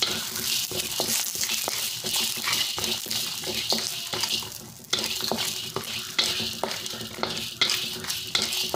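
Curry leaves, dried chillies and dal frying in a little oil in a wok, with a steady sizzle. A wooden spatula stirs and scrapes against the pan in quick repeated strokes.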